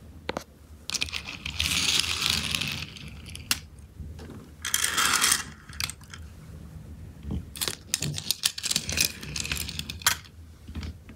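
Small toy cars rolling across a hard floor in two short runs, then a quick string of clicks and clinks as they are pushed by hand into a line and knock against each other.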